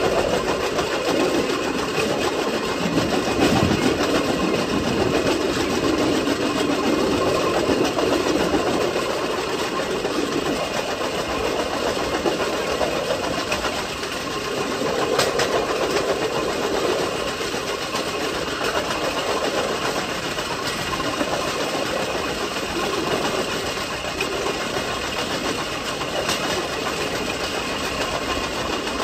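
Vélorail (pedal rail cart) rolling along a railway track: a steady rumble of steel wheels on the rails, with a couple of sharp clicks, one about halfway through and one near the end.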